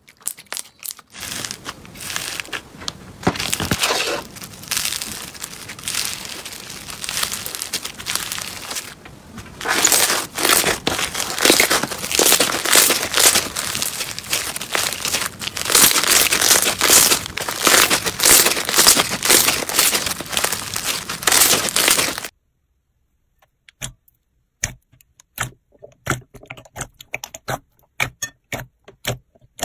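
Hands kneading and stretching slime, making dense crackling and crinkling with many fine pops. It is louder for the middle stretch, where a white, grainy crunchy slime is pulled apart. About 22 s in it stops abruptly, and scattered single clicks and pops follow as glossy blue slime is pressed in a bowl.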